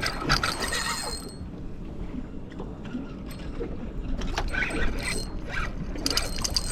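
Fishing reel clicking and ratcheting as a big redfish is fought on the line.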